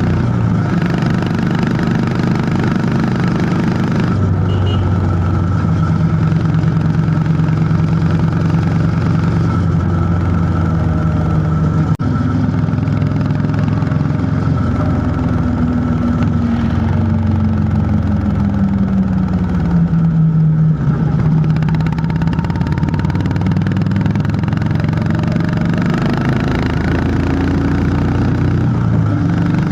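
Honda CB350 H'ness 348 cc air-cooled single-cylinder engine and exhaust running under way on a ride, a steady thump whose pitch holds, then slowly falls over several seconds in the middle as the throttle eases, and rises again near the end. A single sharp click sounds about twelve seconds in.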